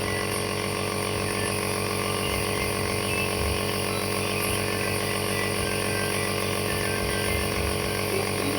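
Nebulizer's air compressor running with a steady, unchanging buzzing hum.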